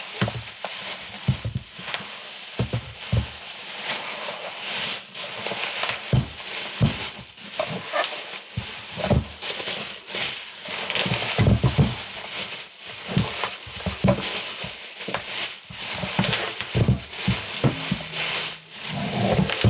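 Bubble wrap being pulled off and unwound by hand, rustling and crinkling with irregular crackles and the odd knock.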